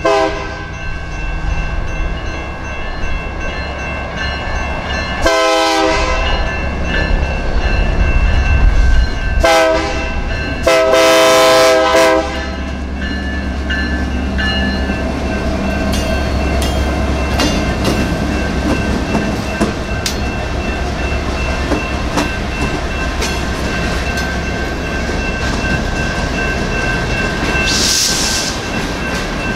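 EMD SD59MX diesel locomotive sounding its horn at a grade crossing: two short blasts and then a longer one, over the steady ringing of the crossing bells. The locomotive then passes and freight cars roll through with a run of wheel clicks over the rail joints.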